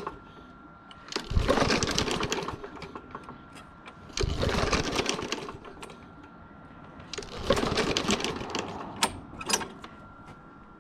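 Troy-Bilt TB110 push mower being pull-started three times, each pull about a second of rapid chattering as the recoil starter cranks the engine, dropping back between pulls because the engine does not catch. Two sharp clicks come near the end.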